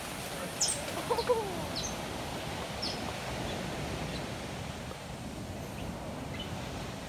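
A few short, high-pitched animal chirps in the first three seconds, with a lower falling call about a second in, over a steady background hiss.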